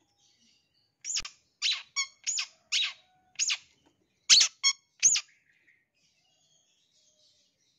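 Long-tailed shrike giving a run of about nine short, harsh, rasping calls in quick succession from about a second in, ending about five seconds in. Some of the calls carry a brief ringing note.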